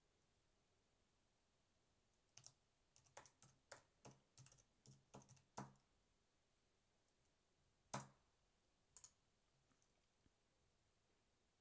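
Faint computer keyboard typing: a quick run of keystrokes over about three seconds, then a single louder key click a couple of seconds later and a few light clicks after it.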